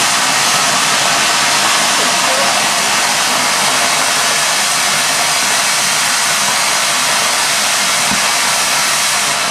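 Firework fountain burning with a steady, loud hiss of spraying sparks.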